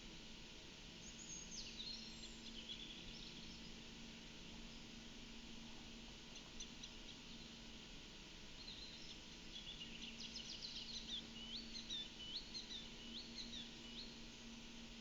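Faint small-bird song: a quick falling run of high notes in the first few seconds, then, in the second half, a busy phrase of short high notes ending in several upswept whistles, over a low steady hum.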